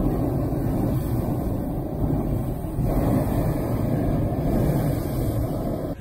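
Hot air balloon's propane burner firing overhead: a loud, steady rushing blast that starts abruptly and cuts off near the end.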